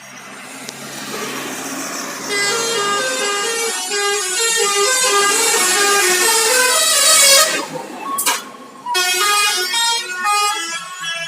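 Bus telolet horn playing a tune: a multi-tone horn stepping quickly from note to note, several tones sounding together, loud. About eight seconds in the tune breaks for a short rush of noise, then carries on.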